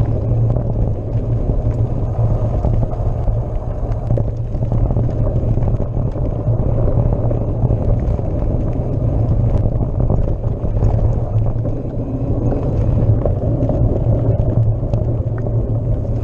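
Rumble and rattle of a mountain bike riding fast down a dirt singletrack, heard through the bike-mounted camera's microphone: a steady, loud, deep noise of tyres, frame vibration and wind on the microphone, with small clicks and knocks scattered through it.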